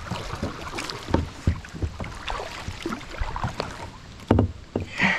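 Kayak paddle strokes splashing through creek water, with scattered knocks and a louder thump about four seconds in.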